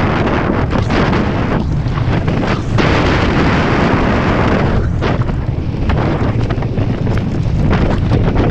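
Wind buffeting an action camera's microphone on a mountain bike riding down a grassy slope, with the rumble of the tyres and the rattle of the bike over bumpy ground.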